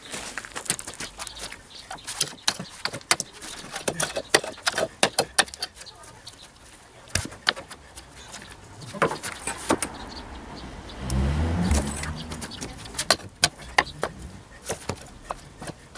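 Hand tool digging and scraping in stony, gravelly soil: irregular clinks and scrapes of stones and metal. A low rumble rises for about a second and a half, around eleven seconds in.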